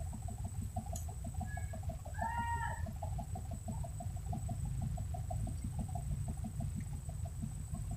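A single animal call about two seconds in, rising then falling with several overtones, over a rapid steady pulsing sound and a constant thin high tone, with low rumbling noise beneath.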